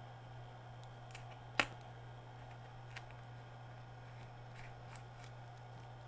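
A few small clicks and taps from a bottle of keypad-repair coating and its brush cap being handled over a remote's rubber keypad, the sharpest about a second and a half in, over a steady low hum.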